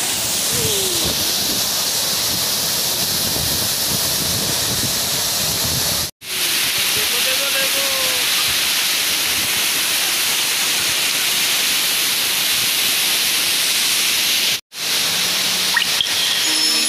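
Waterfall close by, a loud steady rush of falling water and spray that breaks off for an instant twice. Music begins right at the end.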